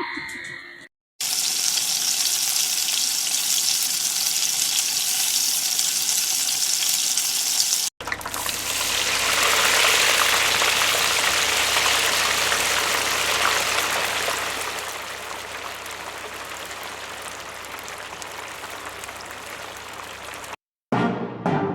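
Steady hissing noise like rushing water or sizzling, in two sound-effect clips back to back: the second starts abruptly about eight seconds in, carries a low hum underneath, swells, then eases to a quieter hiss before cutting off shortly before the end.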